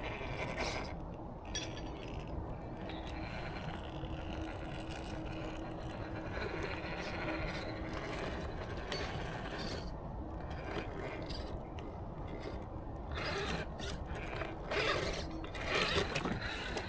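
RC rock crawler driving slowly: its electric motor and gears whine at a steady pitch, with ratcheting and scraping from the drivetrain and tyres on rough ground, louder near the end.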